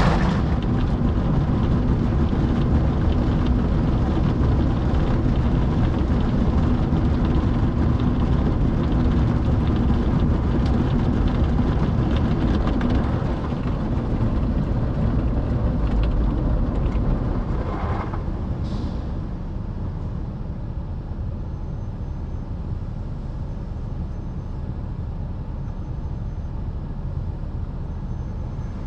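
Automatic car wash heard from inside the car's cabin: water spraying and drumming on the roof and windshield over a low steady rumble. About two-thirds of the way in the spraying stops and a quieter rumble carries on.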